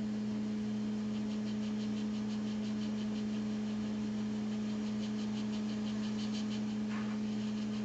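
Hot air rework station running, a steady hum with air hiss, heating flux on a logic board connector to loosen it for cleaning. A faint rapid ticking comes through in the middle seconds.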